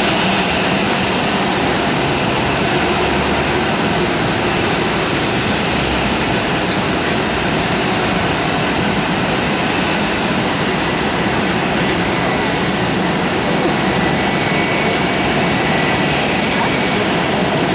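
Airbus A320 jet engines running steadily at taxi power, an even rushing hum with no change in level.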